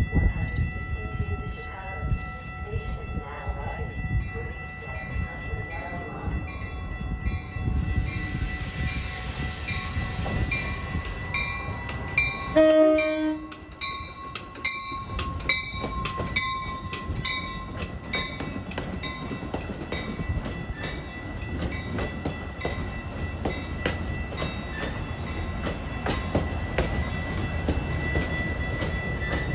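Metra bilevel commuter train, cab car leading, arriving and rolling past along the platform, its wheels and cars rumbling and clacking. A short horn blast sounds about twelve seconds in, as the cab car comes level, over a steady high dinging that repeats about twice a second.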